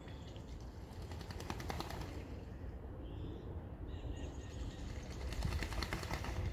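Two bursts of rapid, even tapping, each lasting a second or more, over a low wind rumble, with a few faint bird chirps between them.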